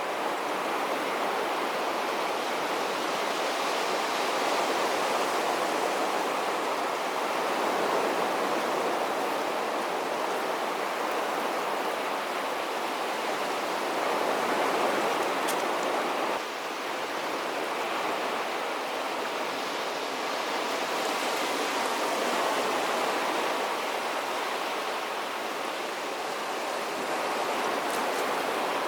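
Sea waves washing onto a beach: a continuous rush of surf that swells and eases every several seconds, dipping abruptly about halfway through.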